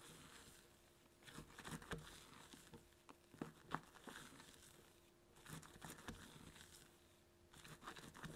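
A spatula folds thick génoise batter in a stainless steel bowl, with soft scraping against the bowl and wet sounds of the batter being turned. The strokes come in four short bouts, about every two seconds.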